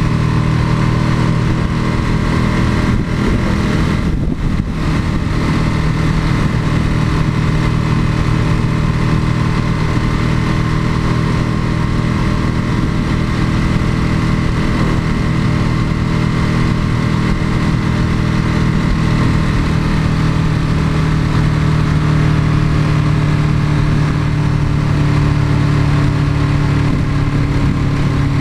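Ducati 996's L-twin engine running at a steady pitch, heard close from a camera mounted on the bike, with a brief dip about four seconds in.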